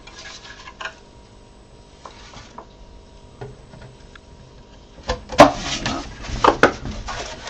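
Large 3D-printed plastic body parts being handled and fitted together: faint rustling and light clicks, then from about five seconds in a run of loud, sharp plastic knocks and clacks as the pieces meet each other and the bench.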